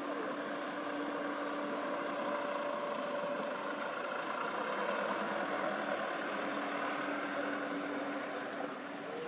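A motor vehicle's engine running steadily, a constant hum with a droning tone.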